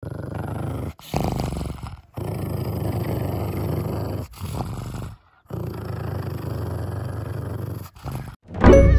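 Pug growling in several long, low rumbles broken by short pauses. A musical jingle starts near the end.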